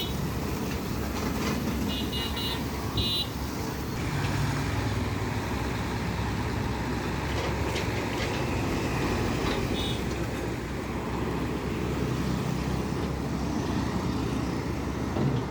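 Excavator's diesel engine running steadily, with a few short high beeps about two and three seconds in and again near ten seconds.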